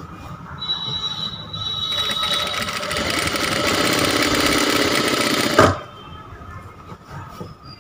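Sewing machine stitching a seam: a fast, even rhythm that grows louder for a few seconds, then stops abruptly with a knock just before six seconds in.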